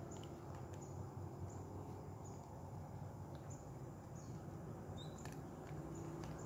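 Faint outdoor background rumble with short, high chirps and ticks scattered about once a second.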